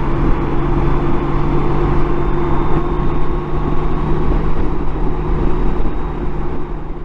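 Honda Gold Wing GL1800's flat-six engine running steadily while riding, under a steady rush of wind and road noise.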